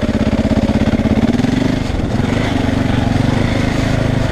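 KTM 450 EXC's single-cylinder four-stroke engine running at low revs in a steady, even pulse, its pitch rising and dipping slightly as the throttle changes partway through.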